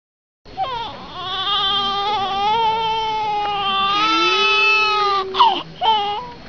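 Baby crying: after half a second of silence, one long wail held for about four and a half seconds, then two short, sharp cries near the end.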